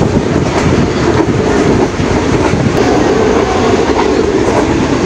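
Passenger train running, heard from inside the coach: a steady, loud rumble of the wheels on the rails.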